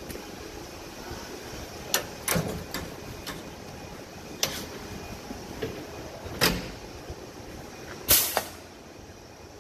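Steady vehicle rumble with scattered sharp knocks and clunks, and one louder short rush of noise about eight seconds in.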